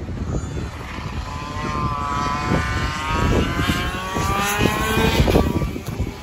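Go-kart engine passing on the track, its whining note rising and then falling in pitch between about two and five seconds in, with wind rumbling on the microphone.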